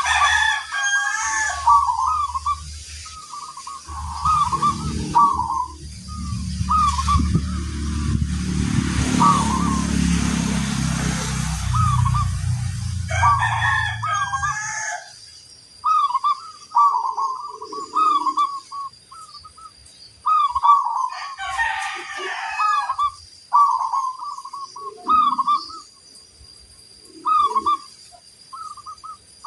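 Zebra doves (perkutut) cooing in short repeated phrases over and over, several birds answering one another. A low rumble runs underneath from about four seconds in to about fourteen seconds.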